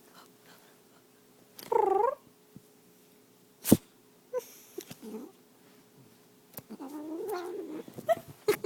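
A domestic cat gives a short meow, then sneezes once, sharply, a little under four seconds in. It follows with a longer, drawn-out meow near the end and a few short sounds after it.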